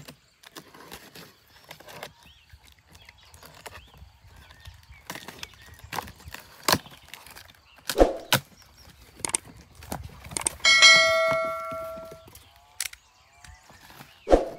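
Handling noises: scattered knocks and clicks, with one bell-like ringing tone about eleven seconds in that fades over a second and a half.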